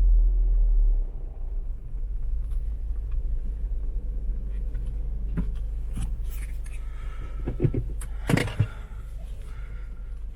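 Mini Cooper S's turbocharged four-cylinder engine idling, heard from inside the cabin. A heavier low rumble in the first second settles to a steady hum. A few light clicks and knocks come in the second half.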